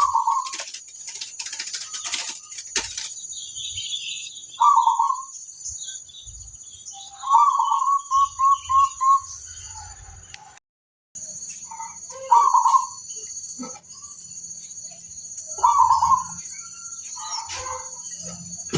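Zebra doves cooing: short calls a few seconds apart, one of them a quick run of about five notes. A steady high-pitched whine runs under them throughout.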